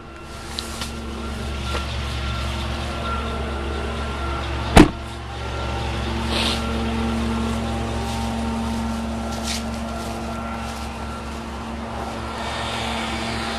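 The gas V8 of a 2015 Chevrolet Silverado 2500 HD idling steadily, with one loud sharp thump about five seconds in.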